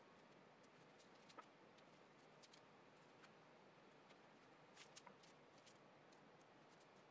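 Near silence: a faint steady hiss with scattered small clicks and ticks from hands handling and peeling green painter's tape on a wooden dresser top.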